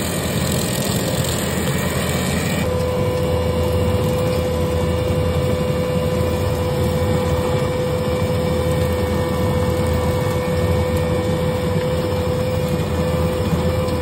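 A Case compact track loader's diesel engine runs steadily as its hydraulic brush cutter mows tall grass. A steady high whine joins in about three seconds in.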